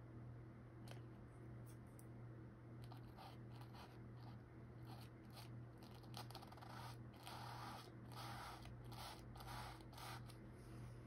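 Paintbrush stroking paint onto a canvas: faint, short strokes, coming in a quick run in the second half, over a low steady hum.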